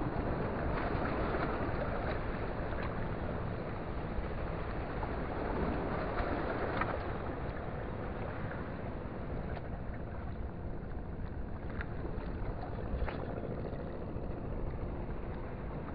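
Steady seaside wind and water noise with a faint steady drone underneath and a few light clicks.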